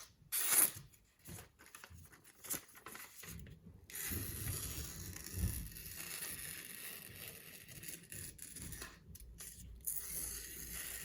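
A freshly sharpened Spyderco Military folding knife slicing through paper to test the edge after deburring. There are several short cuts in the first few seconds, then a longer, steady rustling cut from about four seconds in.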